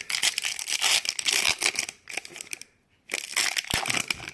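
Hockey card pack wrapper crinkling and tearing as it is opened, in two spells with a brief pause just past halfway.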